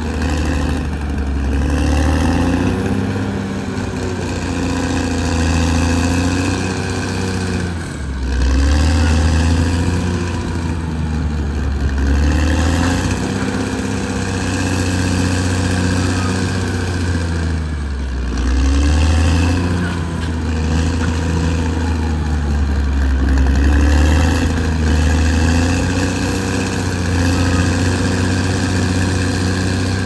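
Caterpillar D6R XL bulldozer's diesel engine running under load, its note sagging and picking back up several times, most clearly twice.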